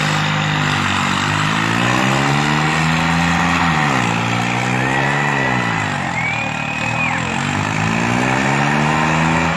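Swaraj 855 tractor's three-cylinder diesel engine revving hard under load. Its pitch climbs, drops about four seconds in, rises again, dips near six seconds, and climbs once more as the tractor rears up into a wheelie.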